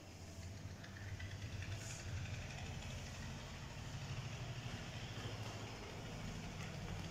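Low, steady rumble of a motor vehicle engine idling, growing louder about a second in and then holding.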